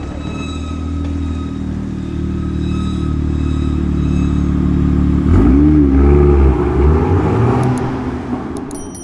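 BMW M2's turbocharged straight-six engine running and building steadily, then revved hard about five seconds in, its pitch rising and falling, before fading and cutting off near the end.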